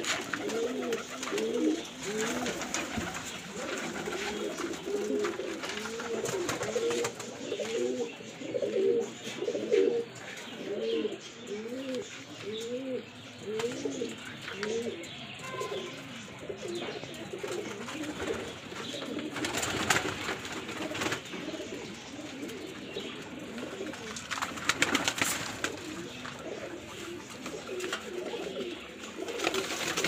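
A flock of Rampuri pigeons cooing together, many overlapping rising-and-falling coos that thin out past the middle. Two short bursts of noise come about two-thirds of the way through.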